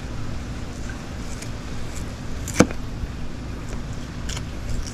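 Steady low background rumble, with one sharp click about halfway through and a few faint ticks.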